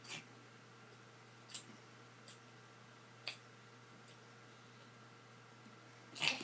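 Domestic cat hiccuping: short, sharp hiccups roughly every second and a half, some fainter, with a louder one near the end.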